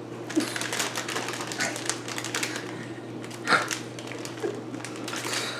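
Rapid crackling and clicking of a bag of chips being crinkled and crushed by hand, with one sharper, louder crackle about three and a half seconds in.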